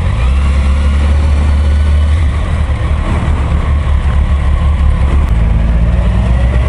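Kawasaki inline-four sport motorcycle engine running at low revs as the bike rolls slowly, picked up by the bike's on-board camera: a strong, steady low engine drone.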